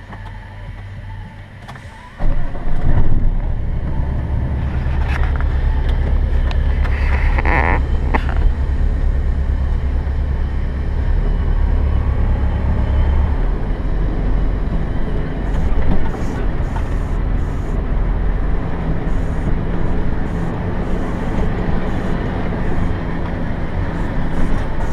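Heavy diesel engine starts running loudly and steadily about two seconds in, with a short hiss a few seconds later.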